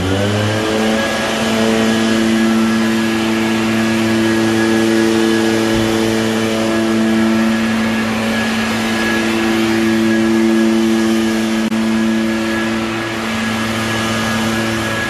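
Engine of a motorized backpack disinfectant sprayer running in a steady drone, its pitch dropping right at the start and then holding.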